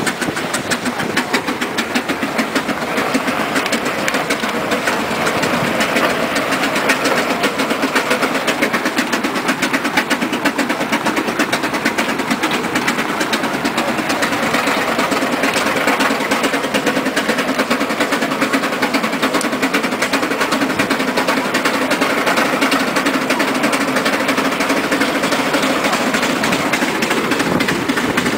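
Steam road locomotive running along a paved road, a fast, steady, even beat from its engine with road noise from its tyres.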